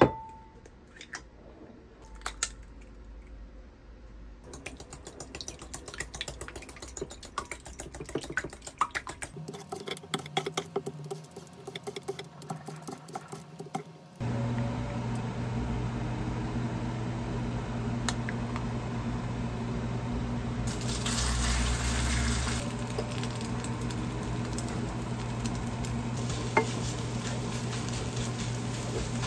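Kitchen prep sounds: scattered knocks and scrapes as zucchini and carrot are julienned and mixed with egg in a bowl. About halfway through, a steady low hum and the sizzle of a thin vegetable pancake frying in a pan take over, with a wooden spatula scraping and stirring it.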